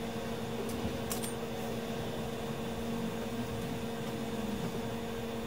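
Steady electric fan hum from workbench equipment, a constant low drone with a hiss, with a few faint clicks about a second in.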